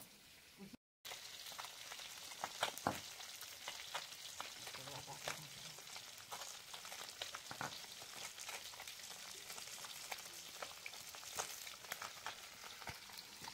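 Faint wet scraping and trickling as spice residue is washed off a stone grinding slab by hand into a metal bowl, with scattered light clicks and taps over a steady hiss.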